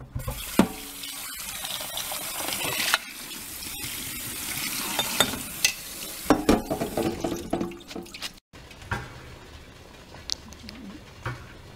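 Tap water running into a stainless steel bowl of split mung beans in a sink while hands rub the beans to rinse them, with a sharp break about three seconds in. Then clinks and knocks of the bowl against the sink, followed by a quieter stretch with a few light knocks.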